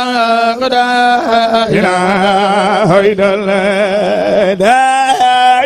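A man chanting zikr, the Sufi devotional repetition of God's name, in long held notes that break into a wavering, ornamented melody in the middle.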